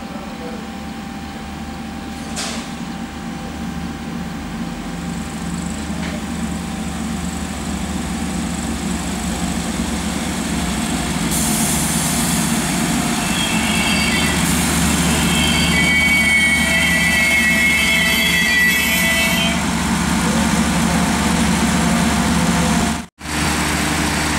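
A diesel multiple-unit railcar approaching slowly and passing close by, its engine running steadily and growing louder. From about halfway there are high-pitched squeals from the wheels on the rails, and the sound drops out briefly near the end.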